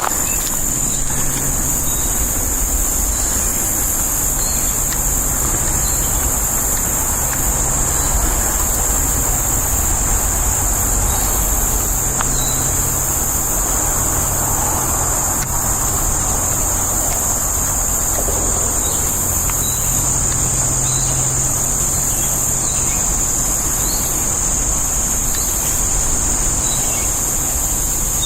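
Steady high-pitched insect chorus drone with no break, over a low steady hum, with a few faint short chirps scattered through it.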